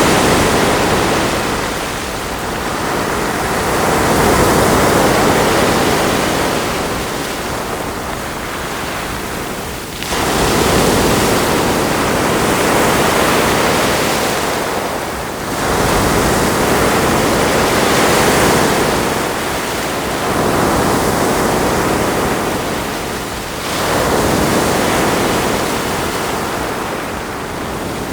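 Ocean waves breaking and washing up onto a shore. The surf swells and ebbs in a slow rhythm, with a new wave rolling in about every four to six seconds.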